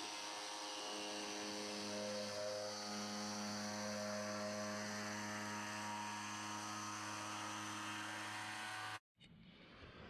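Makita electric jigsaw cutting through a wooden board, its motor and reciprocating blade giving a steady, even hum. The sound cuts off abruptly about nine seconds in.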